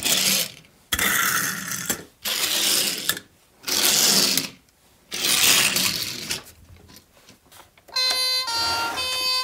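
A string of short rushing passes, about a second each and five in all, as toy cars are driven off one after another across a wooden floor. Near the end an electronic two-tone siren from a toy fire engine starts, stepping back and forth between two pitches.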